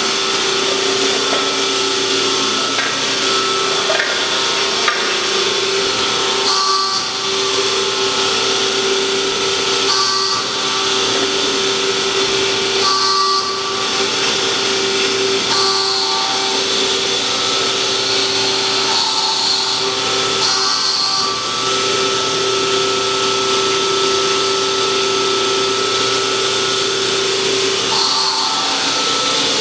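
The 20 hp hydraulic power unit of a 1999 Strippit LVD PPEB 150/10 CNC hydraulic press brake running, a steady mechanical hum and whine with a hiss over it. Its note shifts briefly every few seconds.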